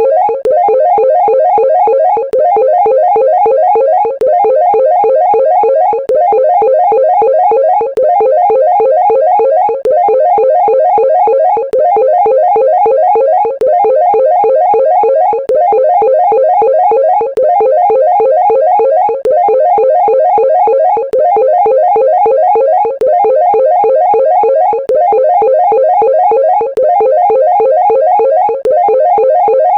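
Fast, busy chase music: rapid short notes in a mid register, a phrase of about two seconds looped over and over with a short dip between repeats.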